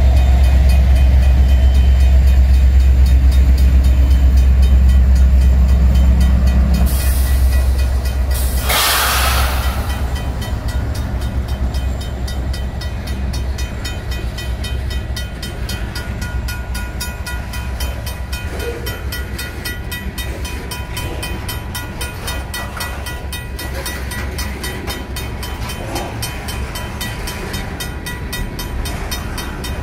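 Union Pacific diesel freight locomotives passing close by with a heavy low rumble, followed by a brief rushing noise about nine seconds in. After that, covered hopper cars roll past with a steady, rapid clatter of wheels on the rails, while the crossing bell rings.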